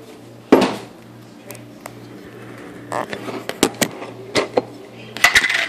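Knocks and clicks of a glass jar and a dish being handled on a kitchen counter: a sharp knock about half a second in, scattered clicks a few seconds later, and a louder cluster of clicks near the end.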